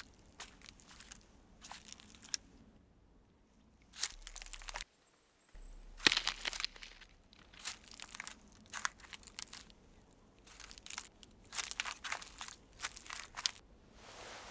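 Footsteps crunching on a dry forest floor of pine needles and dead bracken: irregular steps, with the loudest, sharpest crunch about six seconds in.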